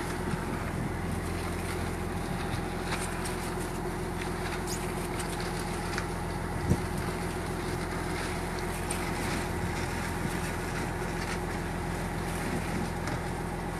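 Fishing boat's engine running with a steady drone and a hiss of wind and water, with scattered faint ticks and one sharp knock about seven seconds in.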